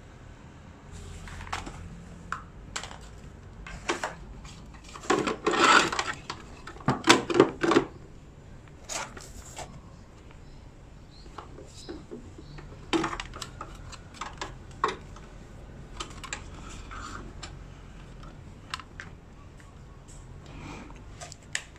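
Hands handling charger cables, connectors and a plastic battery charger box: scattered clicks, knocks and rustles, busiest about five to eight seconds in.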